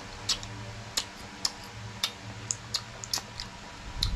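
Close-miked wet mouth clicks and lip smacks from eating oysters and licking fingers: a string of sharp little clicks at uneven intervals, about two a second.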